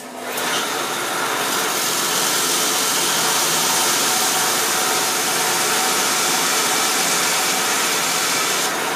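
Belt sander running while the tip of a steel set screw is ground flat against the belt. A loud, steady grinding hiss over the motor's hum starts just as the sound begins, builds in the first half second and stops near the end.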